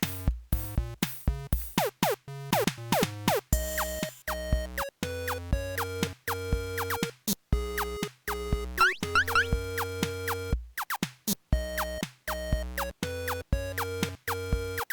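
Upbeat background music with a steady drum-machine beat and short, bouncy synth notes, with a few quick sliding notes.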